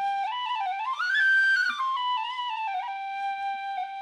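Modern Chinese flute playing a short melody: it climbs to a high held note about a second in, then steps back down and settles on a long held lower note.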